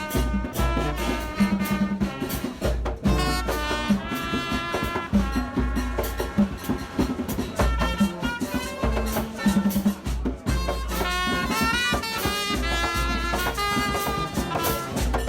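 Background music with brass-like melody lines over a steady bass and beat.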